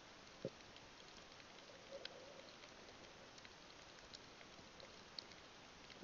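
Near silence through an underwater camera: a faint hiss with scattered faint sharp clicks and one soft low thump about half a second in.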